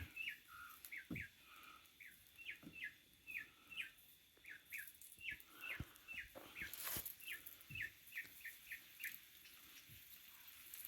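Faint bird chirping: a steady run of short, repeated chirps, two or three a second, with a few soft taps among them.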